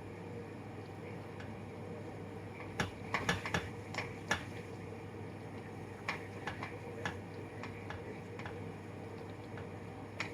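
Light clinks and taps of utensils against kitchen cookware, in a quick cluster a few seconds in and a few more later, over a steady background hum.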